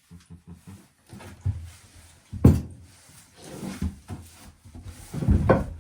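A series of irregular knocks and thumps, the loudest about two and a half seconds in and another strong one near the end.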